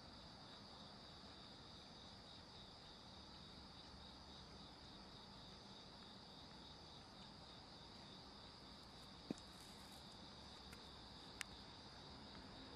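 Faint, steady high-pitched chirring of insects, pulsing evenly without a break. Two brief sharp clicks come near the end.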